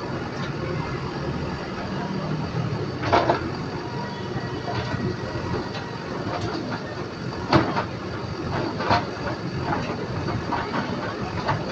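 JCB backhoe loader's diesel engine running steadily, with a series of loud metallic clanks and knocks as the front loader bucket works rubble; the loudest come about three seconds in and again about seven and a half seconds in.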